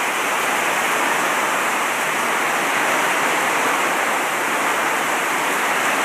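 Steady rain pouring down in a dense, even hiss.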